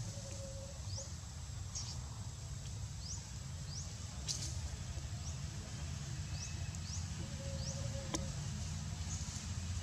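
Outdoor forest ambience: short, high, rising chirps repeat about once a second over a steady low rumble, with two sharp clicks, one near the middle and one near the end.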